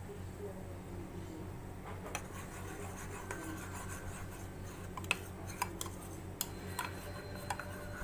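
A metal spoon stirring flour into liquid in a ceramic mug, starting about two seconds in: it scrapes against the inside of the mug, with sharp clinks where it strikes the side.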